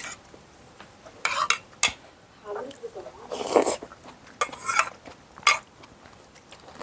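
A spoon clinking and scraping in a bowl as food is scooped up, in several short clatters.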